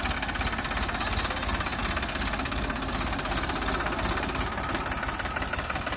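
TAFE 1038 DI tractor's diesel engine running steadily, an even rapid beat that holds at one speed.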